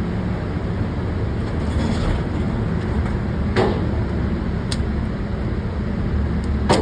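Steady low rumble of an indoor shooting range's air handling, with a sharp gunshot report about three and a half seconds in and another near the end, plus a faint crack between them.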